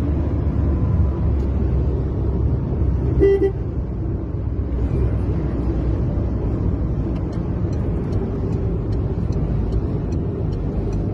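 Dust-storm wind rumbling steadily on the microphone, with a single short car-horn toot about three seconds in.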